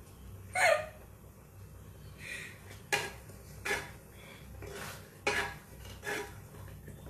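Metal kitchen utensils and cookware clinking and knocking, about five separate sharp clatters a second or so apart.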